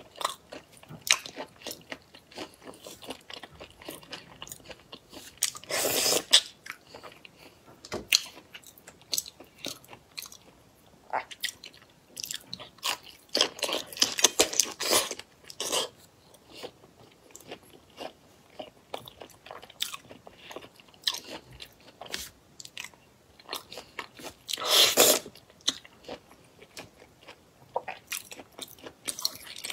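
Close-miked eating of shell-on seafood in spicy sauce: rapid crunching, chewing and wet mouth clicks. Three longer, louder bursts of mouth noise come about 6, 14 and 25 seconds in.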